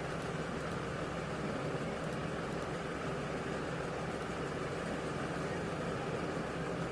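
Steady low hum and hiss of background noise on an open microphone, unchanging throughout.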